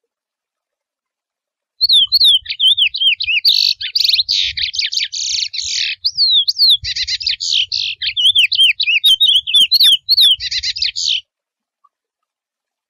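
Male chestnut-bellied seed finch (curió) singing its wild "mateiro" song: one long phrase of quick whistled notes sweeping up and down, broken by short buzzy trills. It starts about two seconds in and stops abruptly well before the end.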